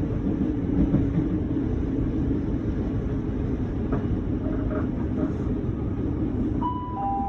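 Steady low rumble inside a class 313 electric train's carriage as it slows to a stop. Near the end a two-note falling chime sounds, the signal that an on-board announcement is coming.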